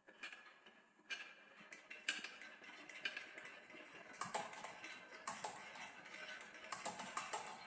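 Marbles clattering down a wooden marble run: sharp clicks and clacks, about one a second at first, then a busier rattle from about halfway through.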